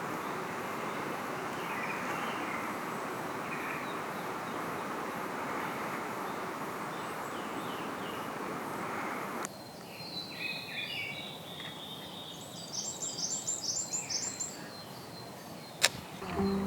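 A steady rushing outdoor noise breaks off abruptly about halfway through. Small wild birds then call and sing, including a quick run of high notes near the end, with a single sharp click just before it stops.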